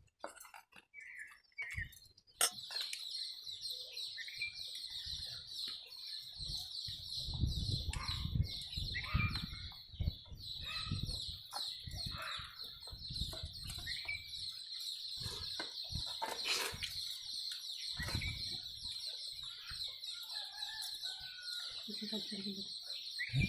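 Chickens clucking now and then over a steady high-pitched drone that sets in a couple of seconds in. There is one sharp knock about two-thirds of the way through.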